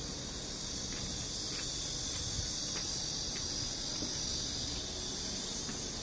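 Steady high-pitched insect drone, with a low rumble underneath.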